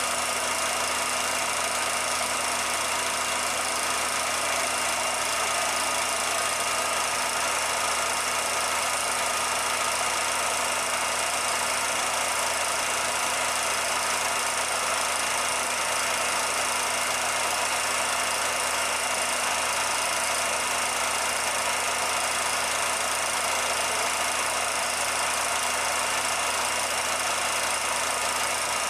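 Steady, unchanging mechanical running noise: a constant hum with even hiss, and no separate knocks or changes.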